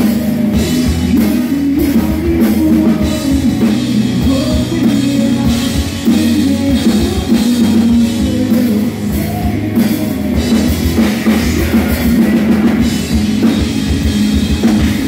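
Hard rock band playing live: distorted electric guitars and a drum kit, with a male lead vocal.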